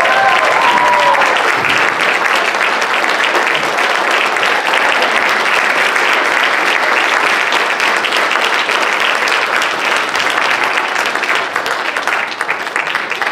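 A large audience clapping steadily in applause. The last held notes of music fade out about a second in.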